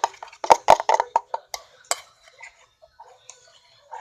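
Utensil clinking and knocking against a bowl, several quick clinks in the first two seconds, then only faint scattered handling sounds.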